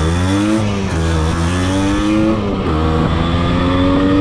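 Yamaha RX100 two-stroke single-cylinder engine accelerating under way, its pitch climbing in each gear, with upshifts about half a second in and about two and a half seconds in.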